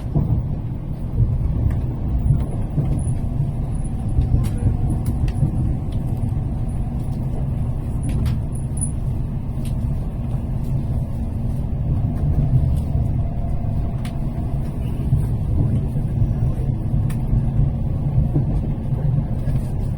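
Steady low rumble of a Tokaido Shinkansen train running, heard from inside the passenger car, with a faint steady whine and scattered light clicks.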